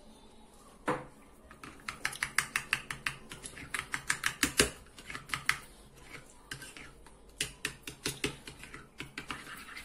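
Metal spoon stirring a thick tahini-yogurt sauce in a small bowl, clicking against the bowl's sides in quick runs of several clicks a second. The loudest click comes about four and a half seconds in.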